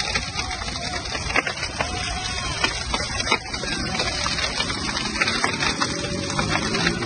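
Large tyre fire burning: a steady rushing noise of the flames, broken by many sharp crackles and pops.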